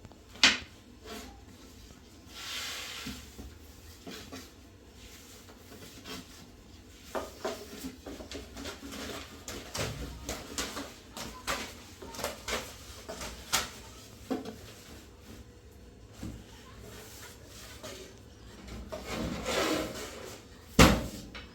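A run of irregular knocks and clatters with two louder bangs, one about half a second in and one near the end, and two stretches of rubbing or scraping.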